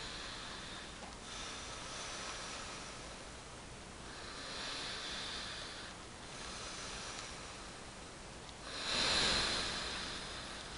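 A man breathing slowly and deeply in and out through his mouth, as asked for a stethoscope exam of his lungs. There are about four airy breaths, the loudest about nine seconds in.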